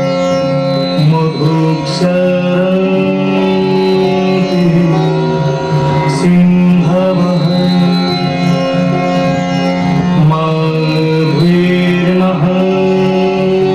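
Odissi dance accompaniment music: a steady drone under a melodic line that bends and slides in pitch, with sharp strikes about two and six seconds in.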